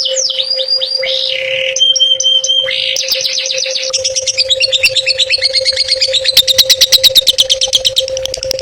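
Songbird singing a fast, varied song of chirps and sweeping whistles, breaking into a rapid trill about halfway through, over a steady low hum.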